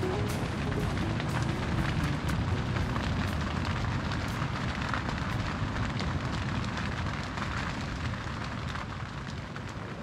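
Strong wind buffeting a tent on the beach at night: a steady low rumble with the fabric rattling and ticking in the gusts.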